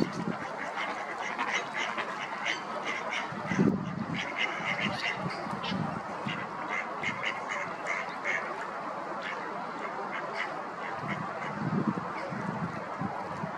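Mallard ducks quacking on the water: a run of short, repeated calls, with a few louder ones about four seconds in and again near the end.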